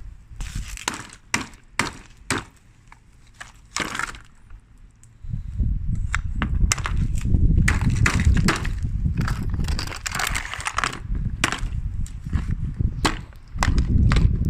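A run of sharp clicks and knocks, sparse at first. About five seconds in, a steady low rumble starts and carries on with more knocks over it.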